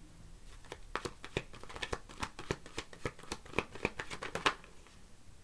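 Tarot deck being shuffled by hand: a quick run of card snaps and taps, several a second, stopping a little before the end.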